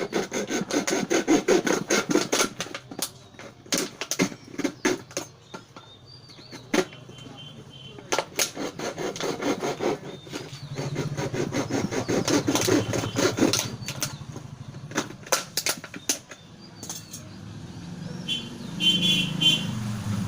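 Plastic bottle being cut part-way through and crackling as it is worked, a dense run of sharp clicks and crinkles that comes and goes. A low steady hum rises in about halfway through and again near the end.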